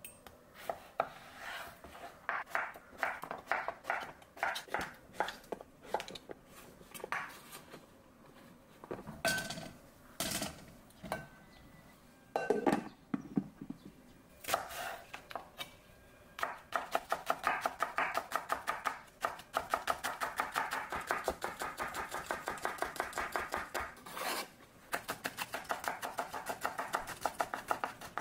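Kitchen knife chopping vegetables on a cutting board: irregular cuts at first, a few heavier knocks midway, then a long run of fast, even chops in the second half.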